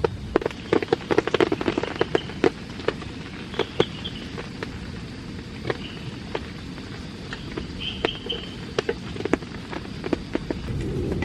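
Rain falling, with large drops tapping sharply and irregularly on a surface over a steady hiss of rainfall. The taps come thick in the first few seconds, then thin out.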